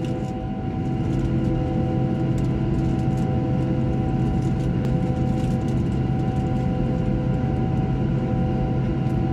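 Steady hum inside the cabin of a parked Boeing 737: a constant drone of several fixed tones over a rushing noise, with faint scattered ticks on top.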